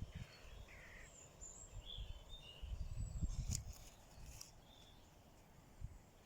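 Garden birds chirping faintly: scattered short calls and song phrases, with a low rumble around them and a click about halfway through.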